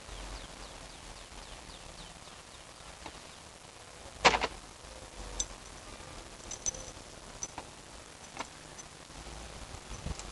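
Plastic ride-on toy digger being worked by hand: one loud clunk about four seconds in, then a few lighter clicks and knocks.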